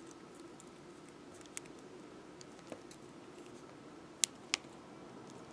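Faint handling clicks of steel pliers and fine beading wire as strands of wire are twisted together: a couple of small ticks, then two sharper clicks in quick succession a little past four seconds in, over quiet room tone.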